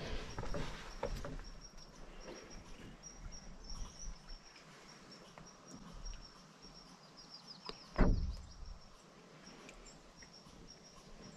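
Footsteps on a trail, then a high, steady chirping trill behind them, with a single loud thump about eight seconds in.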